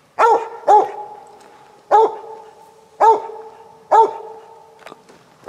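Cur dog barking treed: five loud, evenly pitched barks with a pause of about a second between most of them, each echoing briefly. It is the dog's tree bark, the sign that it has a squirrel treed.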